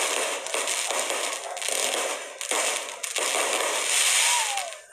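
Fireworks battery (multi-shot cake) firing a rapid run of shots with hissing, crackling bursts, each a fraction of a second to about a second apart. The shots are loudest near the end, then stop suddenly.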